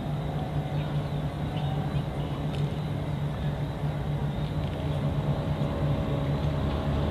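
An engine running steadily: a continuous low hum with a faint higher drone above it.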